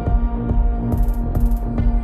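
Electronic music with a steady pulsing beat, deep bass and held synth tones, with short bursts of high hiss on top.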